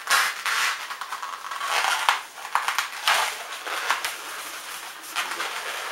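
Long black latex modelling balloon rubbed and twisted in the hands, giving repeated crackly rubbing and squeaking as a six-finger bubble is measured off and twisted.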